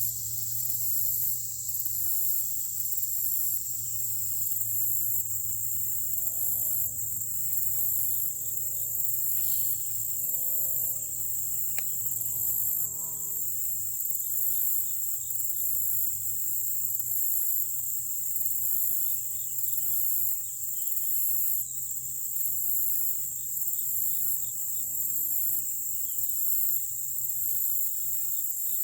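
Chorus of insects, a steady high-pitched drone with a fast pulsing shimmer above it.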